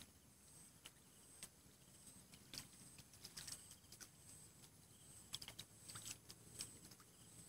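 Near silence, broken by faint, irregular light clicks and ticks, with a faint steady high-pitched tone underneath.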